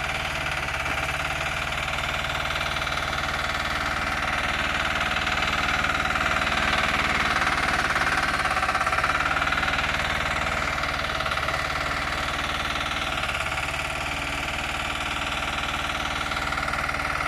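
Single-cylinder diesel engine of a ZOOM mini excavator running steadily with a rapid, even knock of firing strokes, growing a little louder in the middle. It is running again after its fuel lines, tank, injector and injection pump were cleaned out of the petrol put in by mistake.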